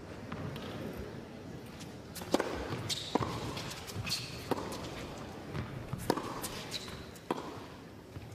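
A tennis ball knocking in an indoor arena: about nine sharp, unevenly spaced knocks, starting a little over two seconds in, of the ball bouncing on the court and being struck.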